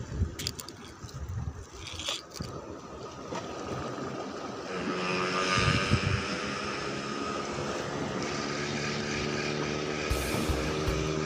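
A steady motor drone comes in about five seconds in and holds at an even pitch, after a few seconds of light scraping and handling noise.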